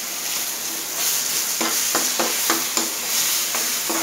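Tomato puree and onions sizzling in hot mustard oil in a nonstick frying pan, the sizzle growing louder about a second in. A steel spoon stirs the mixture, scraping and knocking against the pan several times in the second half.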